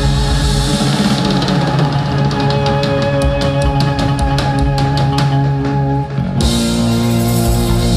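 A live rock band plays a held chord on guitars and keys while the drummer plays a fast, even run of hits on the kit. A brief break comes about six seconds in, and then the band lands on a new held chord.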